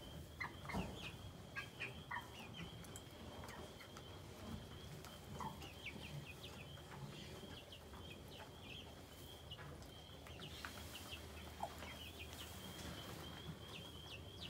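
A small flock of six-week-old chickens, Cornish cross meat birds and egg-layer pullets, peeping and clucking softly: a continuous high chirping with short falling notes, and faint scattered taps.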